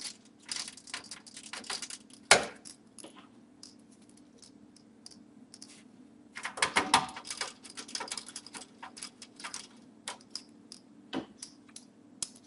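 Small metal clicks and rattles of a magnetic screwdriver and motherboard screws as screws are taken up and driven into the case standoffs. They come in clusters, with a sharp click a little over two seconds in, over a faint steady hum.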